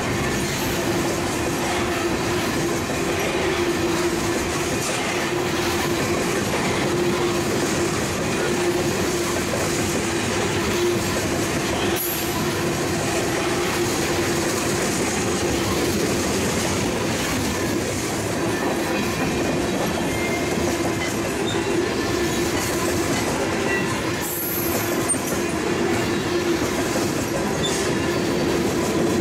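Freight train of covered hoppers and tank cars rolling past close by: a steady rumble and clatter of steel wheels on the rails.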